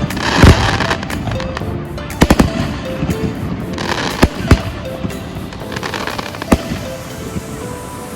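Fireworks going off: sharp bangs every second or two, the loudest about half a second in, some followed by crackling. Music plays underneath.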